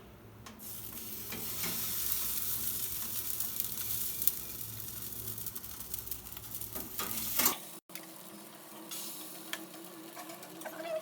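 Oil-coated marinated chicken sizzling on a hot tray in an oven preheated to 230 °C. The steady sizzle starts about half a second in and breaks off sharply about two-thirds of the way through; a fainter hiss carries on after.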